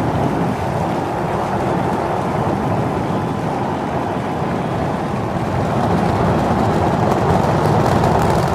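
Super Heavy booster's 33 Raptor engines running at full thrust just after liftoff: a loud, steady rocket roar, deepest in the low range, with some crackle near the end.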